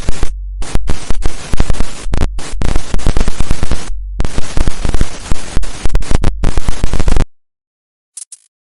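TV glitch sound effect: loud bursts of static with a low hum, chopped on and off in stretches of different lengths, cutting off suddenly about seven seconds in. A couple of faint short ticks follow near the end.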